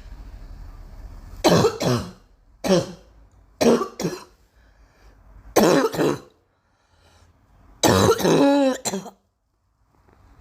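A girl coughing in five short, loud bouts of one or two hacks each, with the longest bout near the end.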